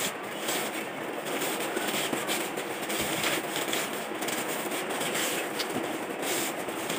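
Bubble wrap and plastic film crinkling and crackling as they are pulled and torn away from a package by hand, a dense run of small sharp crackles throughout.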